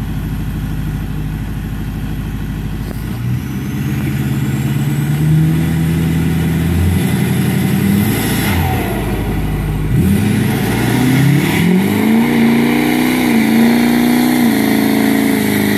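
Ford 6.4L Power Stroke twin-turbo V8 diesel in a Super Duty pickup. It runs steadily at first, then revs climb from about ten seconds in and hold high, wavering, as the rear tyres spin in a smoky burnout.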